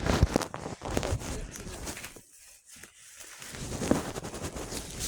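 Irregular rustling and knocks of a phone being handled as it is put away, going quiet for about a second midway.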